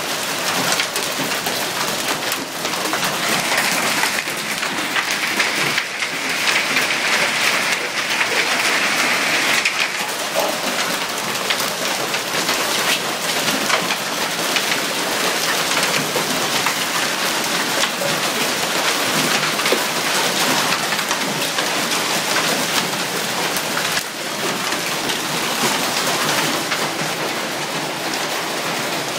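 Nickel- to quarter-sized hail pelting down with heavy rain: a dense, steady clatter of countless small impacts, like popcorn.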